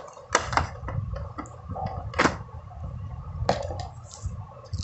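Hands handling a phone's cardboard retail box and its inner tray with the charger and cable: a few sharp clicks and knocks, the clearest ones near the start, about two seconds in and about three and a half seconds in.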